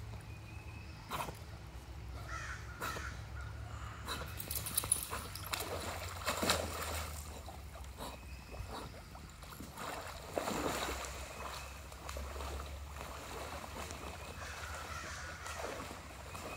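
Water splashing and sloshing as two Leonberger dogs swim and play-wrestle in a stream, busiest a few seconds in and again around the middle. A few short animal calls come about two seconds in and near the end.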